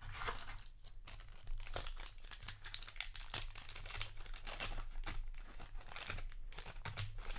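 Crinkling and rustling of a trading-card booster pack wrapper and cards being handled: many quick, irregular crackles throughout.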